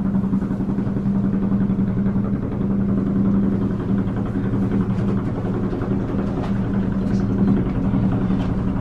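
US Air Force UH-1 Huey helicopter coming in to land: its rotor and turbine running loud and steady, a dense rapid beat under a steady hum.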